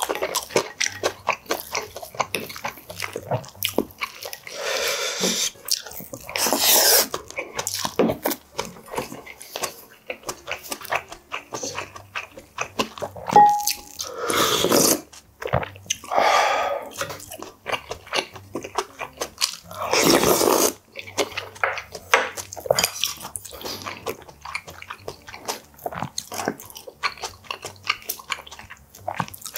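Close-miked eating sounds: wet chewing and smacking with many small clicks, broken by several loud slurps of spicy pollack-roe soup. A short ringing clink comes about 13 seconds in.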